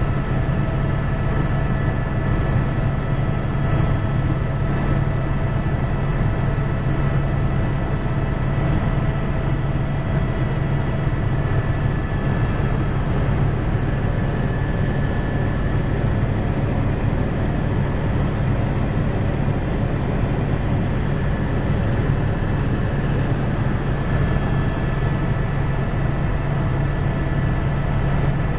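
Helicopter in steady flight heard from inside the cabin: a loud, even low drone from the rotor and engine, with a thin, steady high whine over it.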